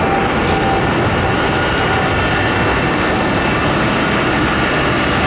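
Boeing 777's twin turbofan engines at takeoff power as the airliner climbs out: a loud, steady jet noise with a faint, steady whine over it.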